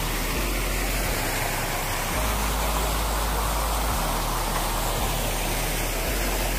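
Steady rushing and splashing of a garden fountain's water jet, with a low rumble that comes and goes several times.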